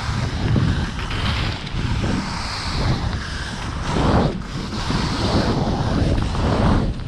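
Wind buffeting the microphone and skis rushing through deep powder snow at speed, with the noise rising and falling in repeated swells through the turns.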